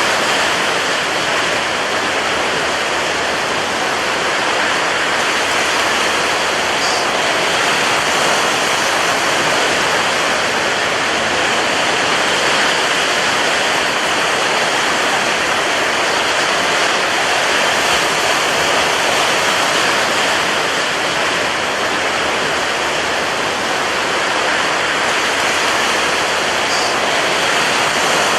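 Rough sea surf: a loud, dense, continuous rush of breaking water that swells and eases slowly in level.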